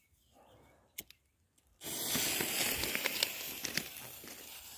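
A firework cake's fuse being lit: a single click about a second in, then the fuse catches suddenly a little under two seconds in and sizzles with a steady hiss and crackle.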